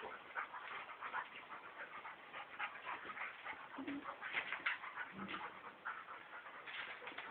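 Two dogs play-wrestling: a quick, irregular run of short scuffling and huffing noises, with two brief low grumbles about four and five seconds in.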